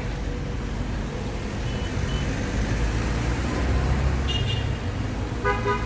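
City street traffic: a steady low rumble of cars and taxis driving past, with a brief pitched sound near the end.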